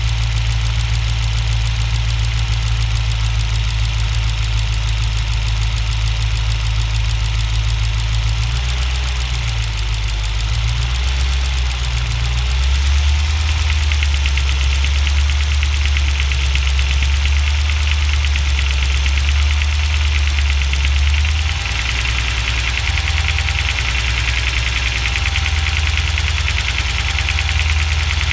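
Cold 6.1-litre Hemi V8 running, its engine speed changing about twelve seconds in and again about twenty-one seconds in. The owner hears a knock or tick at around 1400 rpm that is absent at idle, at higher revs and once the engine is warm.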